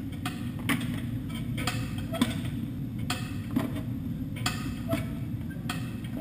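Baileigh kick shrinker being kicked repeatedly, its jaws clacking sharply about twice a second as they bite and gather the 18-gauge cold-rolled steel panel, over a steady low hum.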